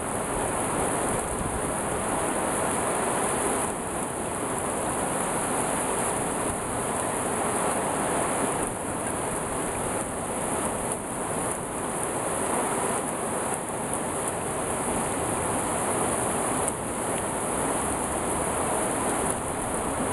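Rain falling hard onto a wet street and splashing in puddles: a steady, dense hiss.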